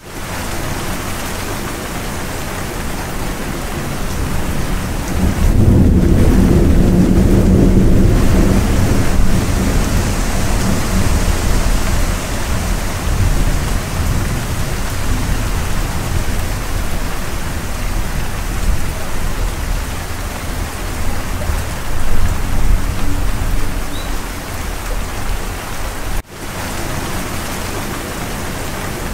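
Steady heavy rain, with a long low rumble of thunder swelling about five seconds in and fading over several seconds. The sound drops out for an instant near the end.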